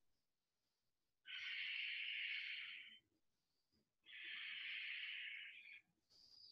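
A woman's slow, audible breathing while she holds a plank: two long breaths, each lasting about a second and a half to two seconds, with a pause between them.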